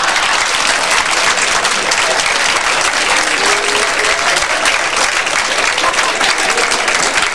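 Live audience applauding steadily in response to a comedian's punchline.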